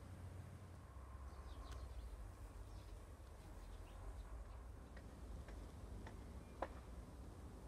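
Faint outdoor ambience: a steady low rumble with a few brief bird chirps, then several small ticks and one sharper tick about two-thirds of the way through.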